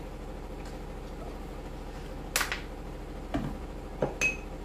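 A few sharp clicks and knocks of a plastic bottle and a small jar being handled and set down on a kitchen counter, the last ending in a brief clink, over a low steady hum.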